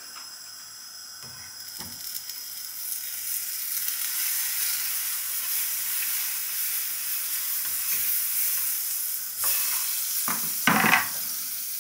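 Butter melting and sizzling in a hot frying pan; the hiss builds over the first few seconds after it goes in, then holds steady. A few short, louder sounds come near the end.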